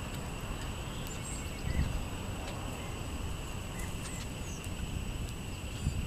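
Small songbirds giving short, scattered chirps and call notes over a steady high background hum, with a brief low rumble about two seconds in.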